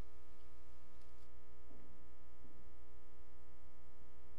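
Steady electrical mains hum on the sanctuary's sound feed, with two faint brief sounds about two seconds in.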